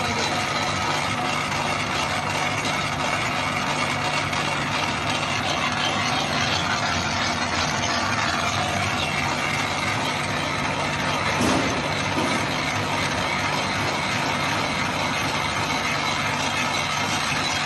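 Small flat-die wood pellet mill running under load, pressing sawdust through its die with a steady mechanical grinding over a constant low hum. A brief louder knock comes about eleven seconds in.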